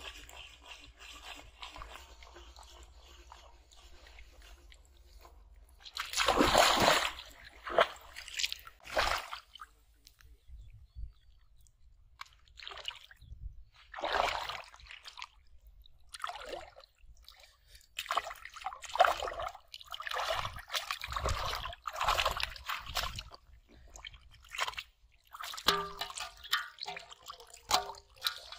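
Shallow, muddy river water splashing and sloshing in irregular bursts as a person wades and hauls a fishing line through it. The bursts come a few seconds apart at first, then closer together from a little past halfway.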